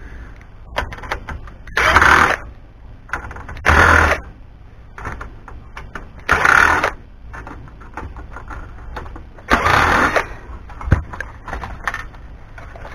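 Cordless drill run in four short bursts, backing screws out of a DVD player's metal case during scrapping, with small clicks and knocks of parts being handled in between.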